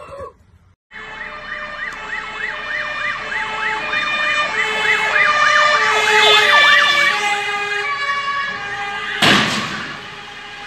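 Fire engine sirens approaching: a fast yelp, about two sweeps a second, with other wailing siren tones layered over it, growing louder and then easing off. Near the end comes a sudden loud crash as the fire engine collides with a car.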